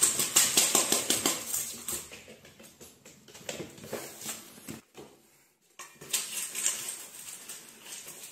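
Dry kibble rattling and clicking in a stainless steel bowl on a tile floor: a quick run of small clicks, loudest in the first two seconds, stops for about a second around five seconds in, then picks up again more softly as the cat eats from the bowl.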